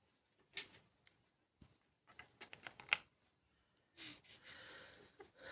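Faint scattered clicks and taps, with a quick run of them about two to three seconds in, then a soft hiss about four seconds in.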